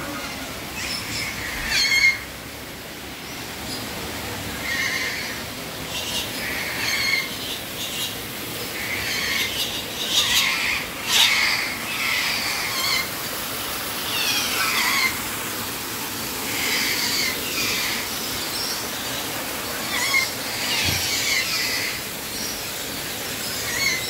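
Parrots squawking and screeching over and over, short harsh calls every second or so, several birds overlapping, with a denser run of shrill sweeping calls around the middle.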